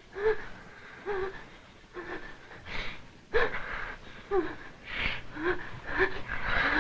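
A woman gasping and whimpering in short, breathy cries, about one a second, while she is being beaten.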